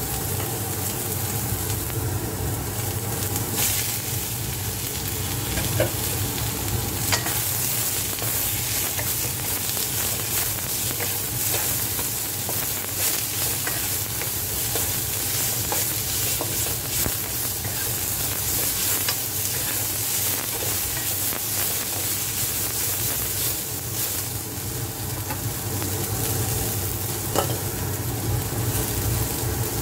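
Celery and tofu strips sizzling steadily in hot oil in a wok while being stir-fried with a wooden spatula, with a few light clicks of the spatula against the pan.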